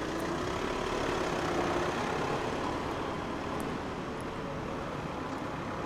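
A saloon car's engine running as the car pulls away, its pitch rising over the first couple of seconds, then the sound easing off into a steady street traffic hum.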